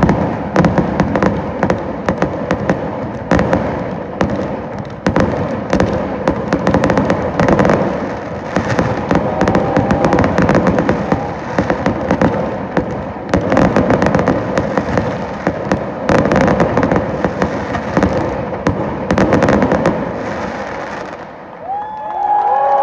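Fireworks display: a dense, rapid succession of bangs and crackling bursts, overlapping one another. They stop shortly before the end.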